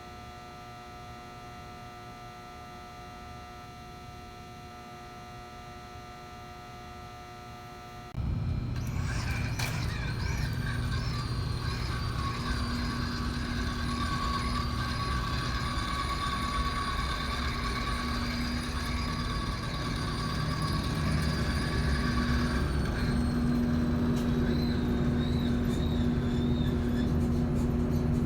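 A steady electrical hum. About eight seconds in, a 1/10th-scale RC car's small electric drive motor takes over, much louder: it runs with a steady high whine over a rushing noise and grows slightly louder near the end.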